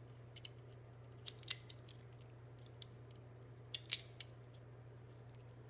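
7.62x25 Tokarev brass cartridges clicking against each other as they are turned over in the fingers: a scattering of small sharp clicks, the sharpest about a second and a half in and a pair near four seconds, over a faint steady hum.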